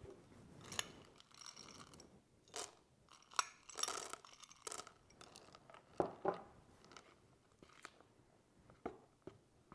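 A spoon scraping chocolate drops out of a small bowl into a mixing bowl of chocolate cake batter, then gently folding them into the batter: scattered soft clicks and scrapes at irregular moments.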